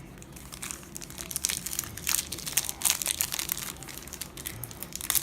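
Foil trading-card booster pack being crinkled and torn open by hand, an irregular crackling of thin wrapper.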